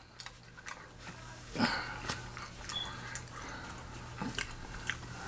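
A person chewing a soft chicken-and-spaghetti casserole close to the microphone: scattered wet mouth clicks and smacks, with a louder one about a second and a half in.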